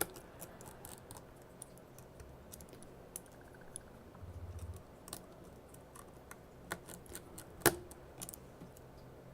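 Light, irregular clicks and taps of small tools and phone parts being handled during reassembly of an iPhone 6, with one sharper tap near the end. There is a short low buzz a little over four seconds in.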